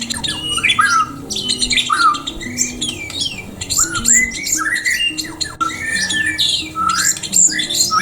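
Many aviary birds calling at once, a dense run of short chirps and gliding calls, over background music with a low stepping melody.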